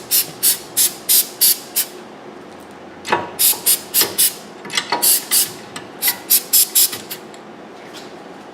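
Aerosol can of spray grease being sprayed in short, quick spurts, about three a second, in three runs with brief pauses between.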